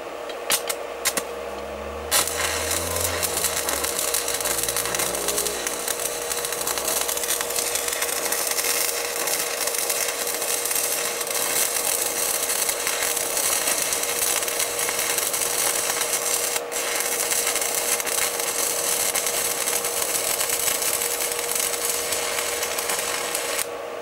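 Stick-welding arc crackling and hissing steadily as an electrode burns at about 170 amps, drawing current through the copper-to-aluminium wire joint under test, with a steady tone underneath. It strikes about two seconds in after a few clicks and cuts off abruptly near the end, when the test wire burns through and breaks the circuit.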